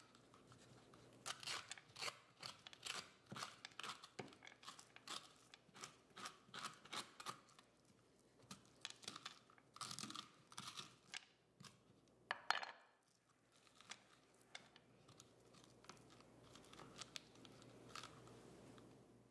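Metal spoon scraping seeds and stringy pulp out of a halved spaghetti squash: a quick run of quiet, wet scrapes and soft tearing, with one louder knock about two-thirds of the way through, then only a few faint scrapes.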